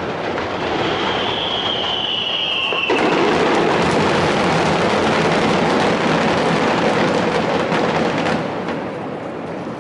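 Fireworks finale: a rapid starmine barrage of bursts and crackles running together into a continuous rumble. A whistling shell sounds about a second in, slowly falling in pitch. The barrage swells suddenly about three seconds in and eases off near the end.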